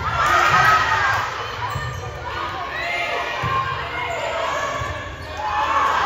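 High school volleyball spectators and players in a gymnasium shouting and cheering during a rally, many voices at once. The shouting is loudest at the start, dips in the middle and swells again near the end.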